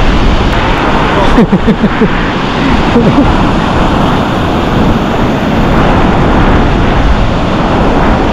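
Strong wind buffeting the microphone over breaking surf, a steady loud rush. About one and a half to three seconds in, a few short low sounds that bend in pitch cut briefly through it.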